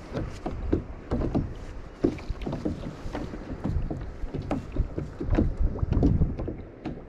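Water slapping against the hull of a plastic sit-on-top kayak on choppy sea, making irregular low knocks and thuds.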